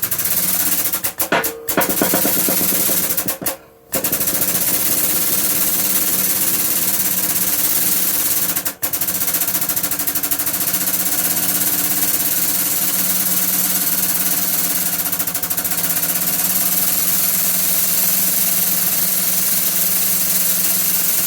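Air-powered press pump running hard and steadily while pressing the bushes out of a lathe clutch drive basket, cutting out briefly three times in the first nine seconds as the foot pedal is eased, then running without a break.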